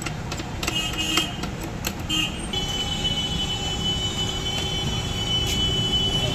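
A few sharp metal clicks from handling engine parts, then a steady high tone held for about four seconds from roughly two and a half seconds in, over a constant low rumble.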